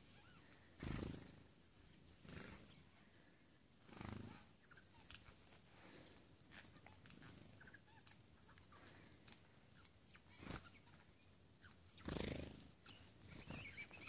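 Near silence, broken by about five soft, brief rustles spread through it.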